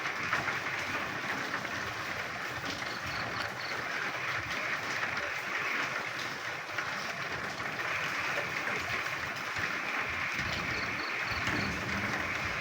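Rain falling with a dense chorus of frogs croaking, the chorus swelling and easing. A short run of high, evenly spaced calls comes twice.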